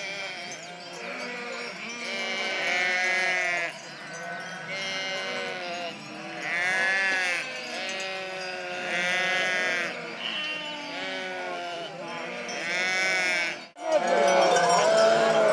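A flock of sheep bleating, with many calls overlapping. Louder single bleats, each about a second long, stand out every few seconds. Near the end the sound breaks off for a moment and comes back louder.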